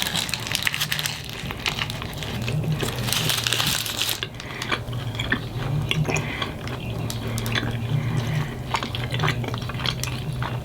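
Close-up crinkling and crackling as plastic salsa cups and their wrapping are handled and opened, then scattered clicks and taps. A steady low hum runs underneath.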